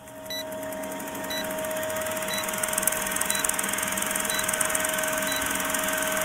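Film-leader countdown sound effect: a steady projector-like mechanical whir with hiss and a faint hum, fading in at the start, with a short high beep about once a second marking each number of the countdown.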